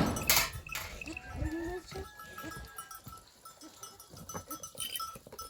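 A sharp knock, then a goat bleating about a second in, followed by small livestock bells clinking faintly and repeatedly.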